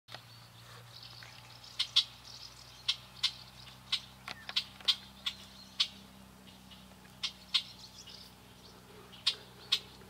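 Young swallows calling: short, sharp chirps at irregular intervals, about a dozen or more over ten seconds, over a faint steady low hum.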